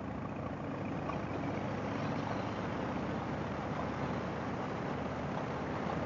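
Harley-Davidson V-twin motorcycle engine running steadily while the bike is ridden along the road.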